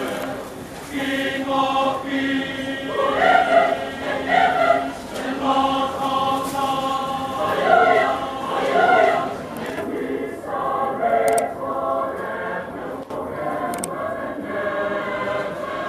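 Large mixed choir of men and women singing together, holding long sustained chords. The sound turns duller about ten seconds in.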